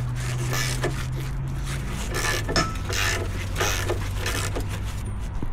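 Ratchet wrench cranking a scissor jack's screw, its pawl clicking with light metal clatter and scraping about twice a second, over a steady low hum; the jack is being wound the other way to lower the van.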